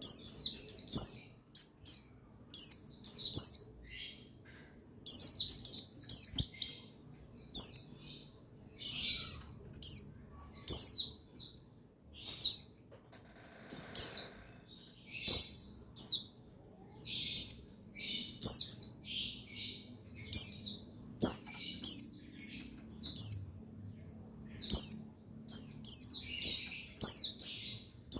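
Oriental white-eye (pleci buxtoni) calling: short, high, downward-sliding chirps, singly or in quick runs of two or three, repeated about every second.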